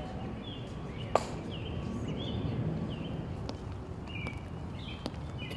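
Birds chirping again and again over a low outdoor rumble, with one sharp click about a second in and a few fainter clicks of the guards' steps later on.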